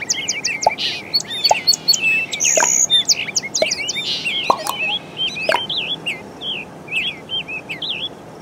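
Many birds chirping and twittering, with quick overlapping chirps that thin out over the second half.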